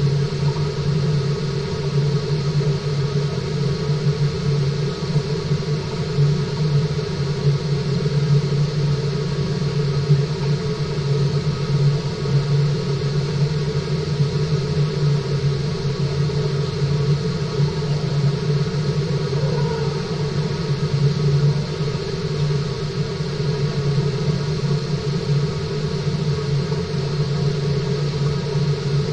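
Steady machine hum and water rush of a fish tank's water circulation system, heard underwater: a constant low drone with a higher hiss and faint steady tones, unchanging throughout.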